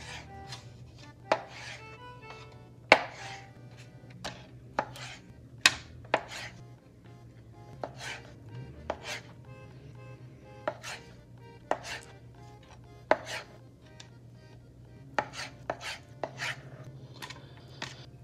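Chef's knife cutting mackerel fillets into chunks on a plastic cutting board. The blade knocks against the board in sharp, irregular strokes, about one every half second to a second.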